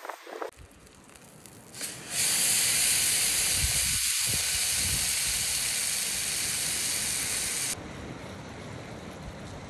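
Tomahawk steak sizzling in a hot pan: a loud, even hiss that starts about two seconds in and drops away abruptly near the end.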